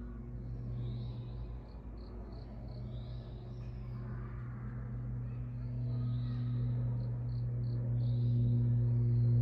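Outdoor ambience: a steady low hum with several overtones that grows louder in the second half, under short high chirps repeating about once a second.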